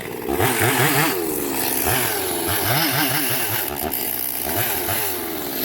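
Two-stroke chainsaw revved up and down again and again, its engine pitch rising and falling in quick repeated sweeps.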